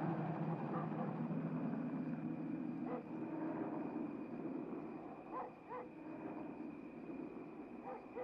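Helicopter noise fading out while a dog barks about four times, short single barks spread across the last few seconds.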